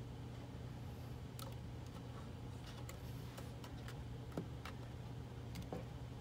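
Scattered light clicks and taps from a hot glue gun being worked against a card-stock box, the sharpest about four seconds in, over a faint steady low hum.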